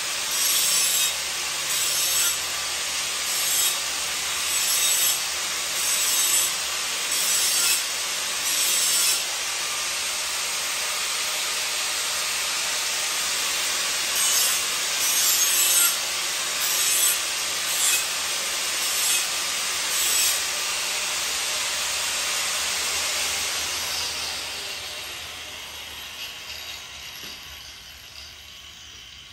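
Angle grinder grinding the edge of a worn steel lawn mower blade, swelling in regular passes a little over a second apart as the disc is worked along the edge. Near the end the grinder is lifted off and winds down.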